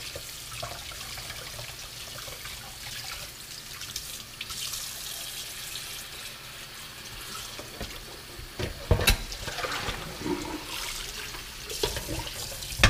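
Kitchen tap running into a pot in a stainless steel sink while a rack of cooked ribs is rinsed and rubbed under the stream. A sharp knock comes about nine seconds in and another near the end.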